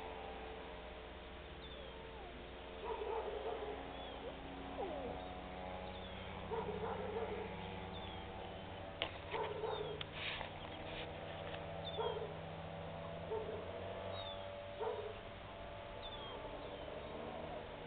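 A dog barking repeatedly, a bark every second or two, over a steady engine drone, with small birds chirping.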